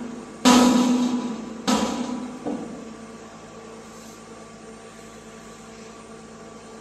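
Dump truck after tipping a load of crushed granite: three loud metallic clangs from its dump body in the first two and a half seconds, each ringing out for about a second, then the truck's engine running steadily as the bed lowers.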